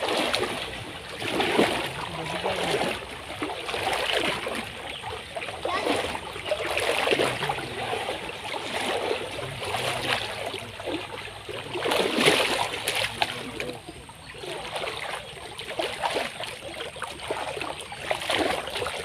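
People wading through shallow muddy water, their legs and a plastic basin splashing and sloshing in irregular surges every second or two.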